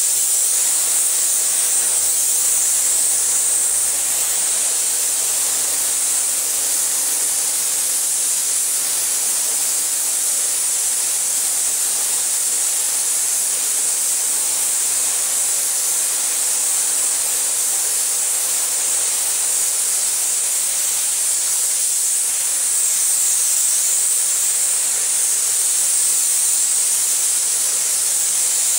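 Compressed-air paint spray gun spraying paint: a steady high-pitched hiss.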